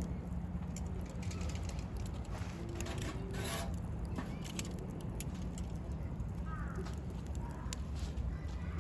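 Wood campfire crackling, with scattered sharp pops of burning wood and a short louder crackle about three and a half seconds in, over a steady low rumble.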